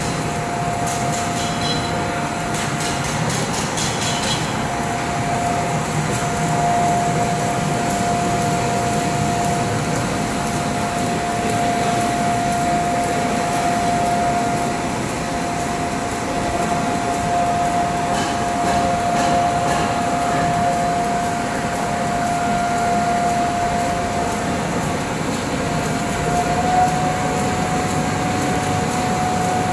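M370 hybrid label finishing machine running, its label web feeding over rollers and through the rotary flexo and die-cutting cylinders: a steady mechanical hum with a constant whine, its pitch stepping up slightly near the end. Light rapid clicking in the first few seconds.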